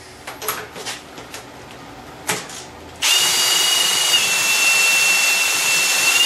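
A few light clicks and a knock as a drill socket is fitted onto the input-shaft nut of a Tuff Torq K46 hydrostatic transaxle. About three seconds in, the cordless drill starts suddenly and spins the transaxle's input shaft with a steady whine, driving the wheels. The whine drops slightly in pitch about a second later, as the drill takes the load.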